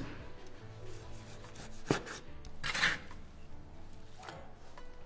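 Kitchen knife slicing raw beef on a cutting board: a few rasping strokes through the meat, with sharp knocks of the blade on the board at the start and a little before two seconds in.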